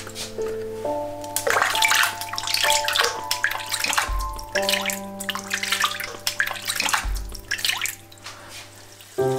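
Water splashing and sloshing in a sink as a kitten is bathed, irregular splashes that thin out near the end, over soft background music.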